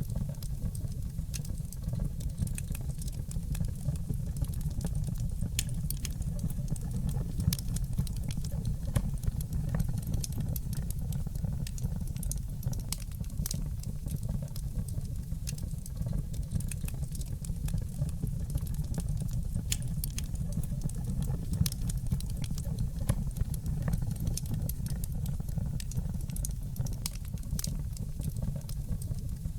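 Steady low rumble of blizzard wind with a wood fire crackling, its sharp pops and snaps coming irregularly, several a second.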